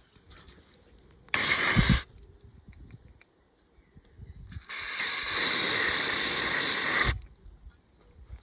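Aerosol carb cleaner hissing as it is sprayed into a carbon-sludged EGR valve to flush it out: a short blast about a second in, then a longer blast of two or three seconds.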